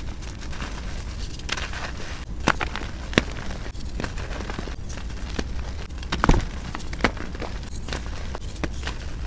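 Hands squeezing and crumbling soft reform blocks of compacted powder into loose powder, making irregular crisp crunches and crackles with soft powdery rustling between them. A louder crunch comes about six seconds in.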